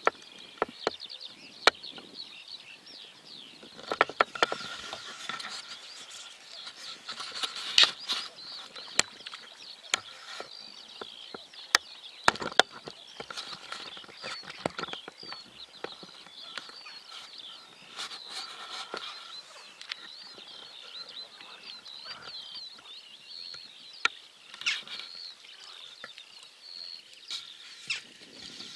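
Small birds singing all through: a dense, continuous twittering of quick high chirps. Scattered sharp clicks and knocks sound over it.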